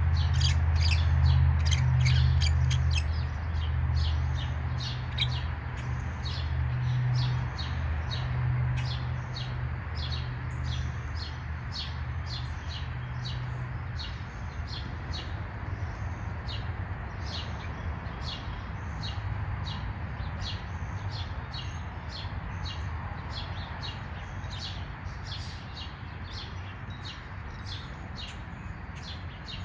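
Small birds chirping over and over, short high chirps about twice a second, with a low steady hum underneath that fades about halfway through.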